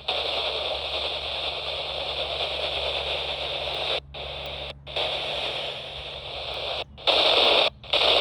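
Weather radio receiver hissing with static that drowns out the broadcast voice, over a steady low hum. The audio cuts out sharply for a moment four times: about 4, 5, 7 and 8 seconds in.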